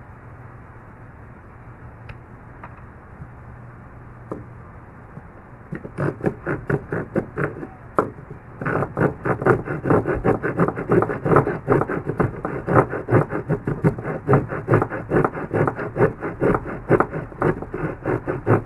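A few faint clicks, then the short folding saw blade of an Adventuridge 17-in-1 multitool sawing wood in quick back-and-forth strokes, about two or three a second, starting about six seconds in and going steadily and louder from about nine seconds in.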